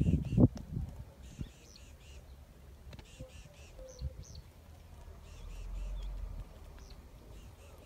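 Wild birds chirping, with quick runs of short, high, repeated notes. A brief louder, lower sound comes in the first half-second, and a low wind rumble sets in around six seconds in.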